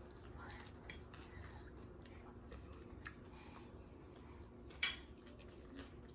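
Quiet eating sounds at a table: chewing, and a few small clicks of a utensil against a dish, with one sharp clink about five seconds in. A faint steady hum lies underneath.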